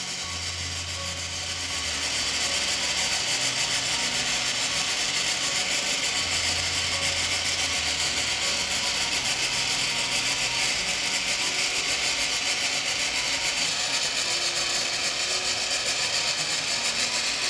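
Water draining from a Dalla Corte espresso machine's steam boiler in a steady pouring, splashing stream during its automatic boiler-cleaning cycle. A low hum comes and goes twice in the first half.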